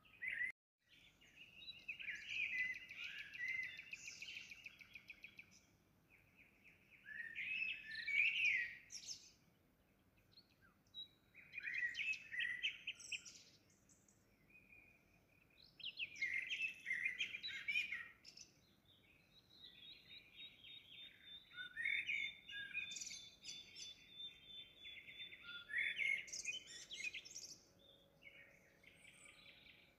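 Bird song: repeated phrases of fast, high trills and chirps, each lasting a few seconds, with short pauses between them and a longer phrase near the end.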